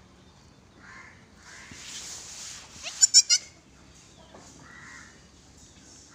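A goat bleating: one short, wavering bleat broken into three or four quick pulses about three seconds in, after a breathy rustle, with fainter brief calls before and after.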